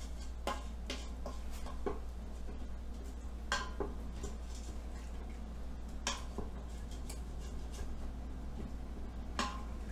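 Wooden spoon scraping and knocking against the stainless-steel inner pot of an Instant Pot, deglazing browned bits from the bottom in chicken broth. The scrapes and clicks come irregularly, with a few sharper knocks spread through.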